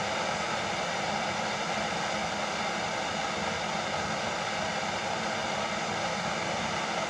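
Propane torch burning with a steady hiss, heating a welded metal wire frame so it can be bent.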